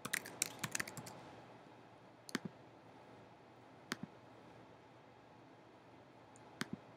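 Computer keyboard typing, a quick run of keystrokes in the first second, then three separate mouse clicks spread over the following seconds, each a short press-and-release double tick.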